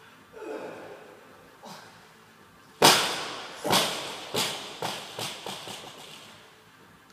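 Loaded barbell with rubber bumper plates dropped onto a rubber gym floor. One loud impact about three seconds in, then a string of bounces that come quicker and fainter as the bar settles.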